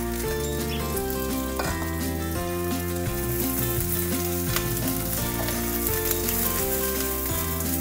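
Chopped cabbage sizzling in hot oil in a nonstick wok while a spatula stirs and scrapes it, with a few short scrapes. Background music with held, changing notes plays underneath.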